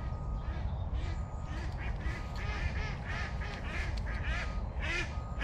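Ducks quacking, a steady run of short calls repeated many times.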